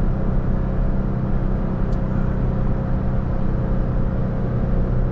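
Inside the cab of a 2019 Toyota Tacoma TRD Sport towing a travel trailer up a long grade: the engine drones steadily under load in third gear, over road noise.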